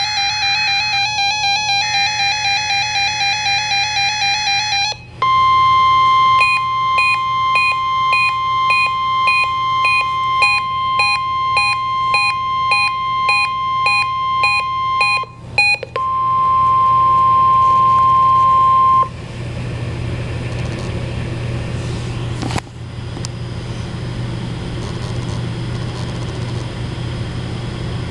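Emergency Alert System weekly test tones: warbling electronic tones, then a long steady high-pitched alarm tone with a regular beeping over it, about three beeps every two seconds. After a short break the steady tone sounds alone for a few seconds. It gives way to steady radio hiss with a low hum and a single click.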